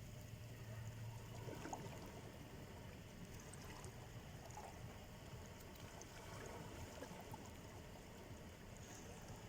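Gentle sea surf washing at the shore: a steady, quiet wash with a low rumble and scattered small fizzing ticks of water.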